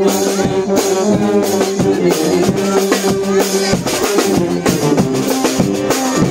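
Brass band playing a lively tune: trombone and saxophone over a snare drum, crash cymbal and bass drum, with held brass notes and quick drum strikes throughout.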